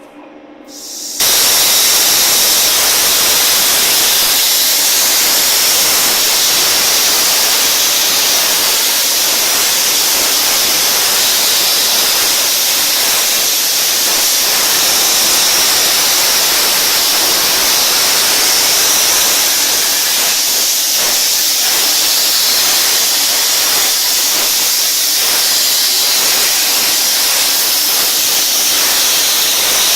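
CEBORA 10051/T plasma cutter's torch arc cutting metal: it strikes about a second in with a sudden loud, high hiss that then holds steady.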